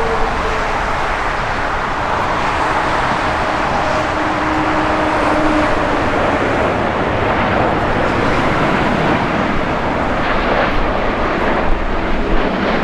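Jet engines of an arriving Boeing 787-10 airliner: a steady, loud rush of noise with faint tones in it and a few brief louder peaks near the end.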